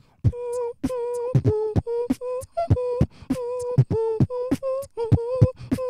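Beatboxing into a microphone: sharp mouth-made kick and snare strikes in a quick, steady beat, with a held vocal tone sounding between the strikes.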